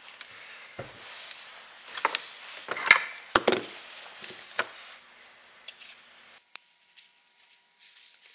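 Scattered knocks and clicks of a small knife and battery-pack parts being handled and set down on a workbench, the loudest a few seconds in, then only a few faint ticks.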